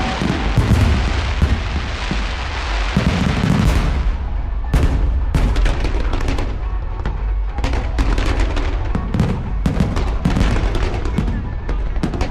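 Aerial fireworks display: a dense, unbroken run of sharp bangs and crackles over deep booms, with several shells going off each second.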